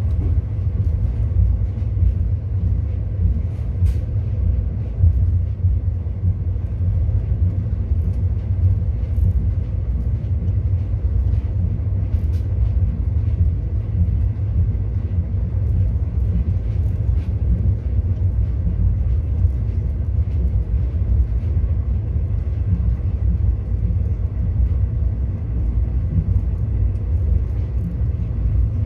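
ICF passenger coach running at speed on the track, heard from inside a closed 3rd AC coach: a steady low rumble of the wheels and bogies, with a few faint clicks.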